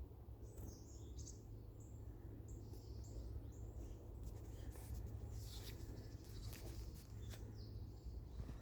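Small birds giving short, high, thin calls, many times over, above a low steady rumble.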